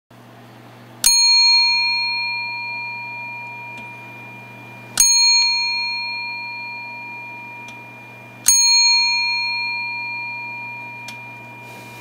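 A bell struck three times, a few seconds apart; each strike rings out with a clear, bright tone that fades slowly.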